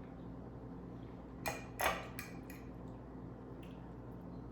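A few clinks of a fork against a plate, two sharper ones about a second and a half in, then fainter taps.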